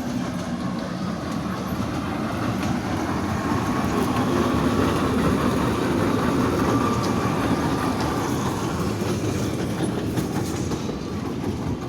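Children's train running along its rails, a steady rumble that grows a little louder toward the middle.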